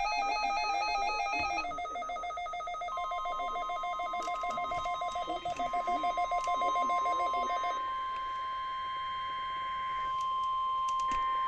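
Overlapping electronic alert tones: warbling, rapidly alternating two-note beeps, joined about three seconds in by a steady single-pitch NOAA Weather Radio warning alarm tone of about 1 kHz. The warbling stops about eight seconds in, leaving the steady tone.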